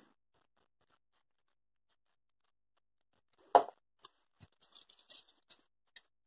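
Quiet handling of a small plastic glue bottle and foam petals: a sharp click about halfway through, then a few faint small clicks and taps.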